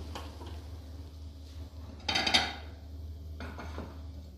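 Eggs boiling in water in a steel pot on a gas stove, with a short, loud metallic clatter of pots about two seconds in.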